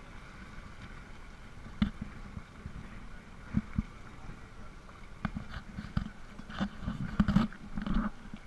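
Speed boat under way: a steady engine rumble with water washing against the hull, broken by irregular thumps and splashes that come thicker in the last couple of seconds.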